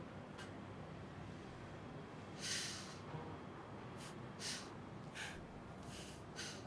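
A person's breathing: several short breaths or sniffs over a faint room hiss, the longest about two and a half seconds in, then quicker ones over the last few seconds.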